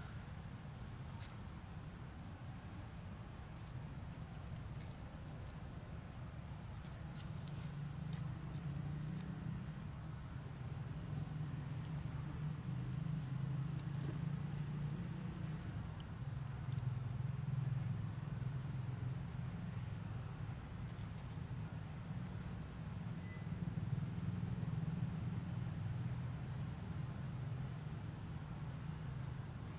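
A steady, high-pitched insect drone holds one pitch throughout, over a louder low rumble that swells and fades.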